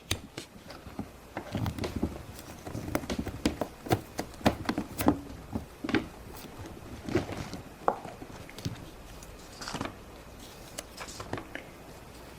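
Plastic Play-Doh mold lids and dough being handled and pressed: irregular clicks, taps and knocks with soft rubbing.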